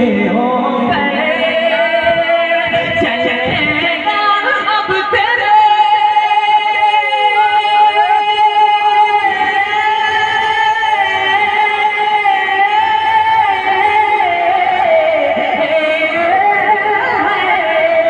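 A male naat reciter singing through a microphone and loudspeakers, drawing out a long, wavering high note without words. He holds one note steady for several seconds in the middle, then bends it down and back up near the end.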